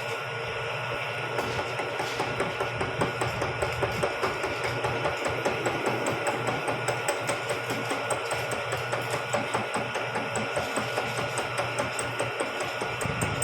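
Vertical milling machine cutting spur-gear teeth, its cutter knocking in an even rhythm of about three strikes a second over a steady high whine.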